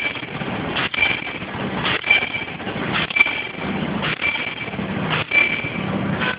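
Non-woven bag making machine running in a steady cycle, its sealing and cutting head striking about once a second, each stroke a sharp knock with a brief high ring, over continuous machine noise.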